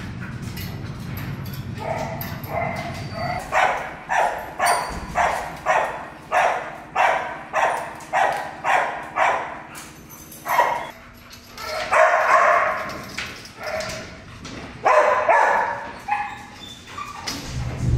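Dog barking. First about a dozen short barks in an even rhythm, roughly two a second, then a few longer, louder barks near the end. A low steady hum sits under the first few seconds and stops as the barking begins.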